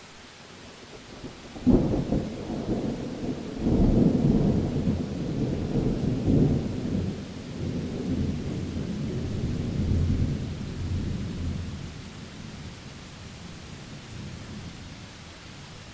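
A thunderclap over steady rain: a sharp crack about two seconds in, a second surge soon after, then a long low rumble that fades away over the next eight seconds or so.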